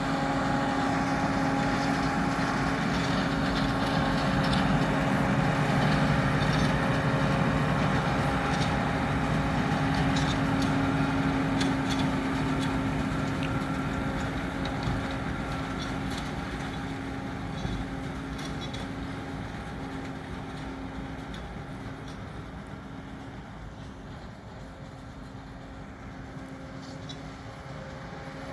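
New Holland T7 245 tractor's six-cylinder diesel engine running steadily under load while pulling a round baler. It grows a little louder over the first few seconds, then fades slowly as the outfit moves away, with light clicks from the machinery around the middle.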